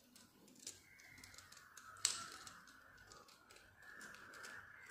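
Faint small metallic clicks of split-ring pliers turning a steel split ring onto a treble hook and the lure's eye. The sharpest click comes about two seconds in.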